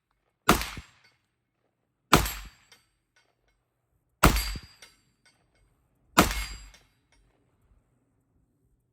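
Four AR-15-style rifle shots about two seconds apart, each a sharp crack with a short fading tail. A faint tick about half a second after some shots is the bullet striking a steel silhouette target downrange.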